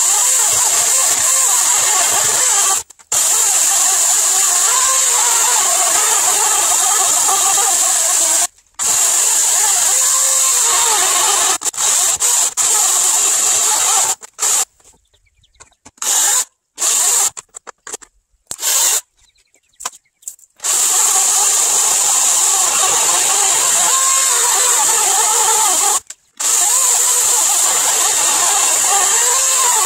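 LiTHELi 40V cordless electric chainsaw cutting through a log, running with a high whine. It stops short about 3 and 9 seconds in. Between about 14 and 20 seconds it cuts out and starts again several times in quick succession, then runs steadily, with one more brief stop near the end.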